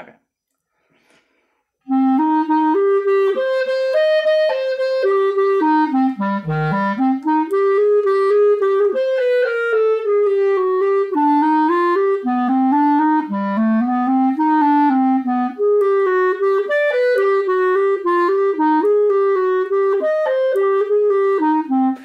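Plastic-bodied Backun Alpha clarinet played solo: after about two seconds of quiet, a flowing passage of connected notes starts, running up and down through the low and middle registers and continuing to the end.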